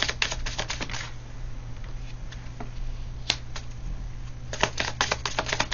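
Tarot cards being shuffled: a fast run of riffling card clicks for about a second, a pause broken by a single click, then another fast run near the end.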